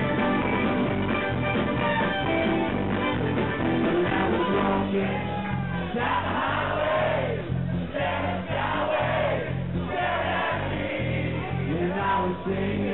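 Live band playing with acoustic and electric guitars over a steady, repeating bass line; a man's lead vocal comes in about halfway, sung into a handheld microphone.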